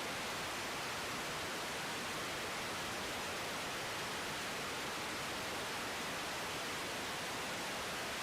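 Steady hiss of static from an air traffic control radio feed between transmissions, even and unchanging.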